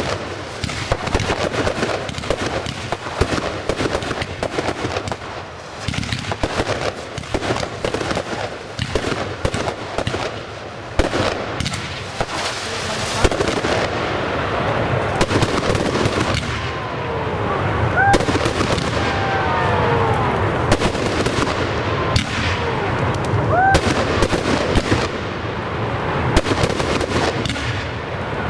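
Professional fireworks display: a rapid, continuous run of bangs and crackling shell bursts. A cluster of short whistling effects sounds about two-thirds of the way through.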